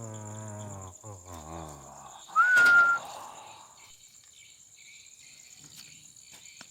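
A person whistles one short note about two and a half seconds in; it rises at the start and then holds for about half a second. Before it comes a low, drawn-out voice, and steady cricket chirping runs underneath.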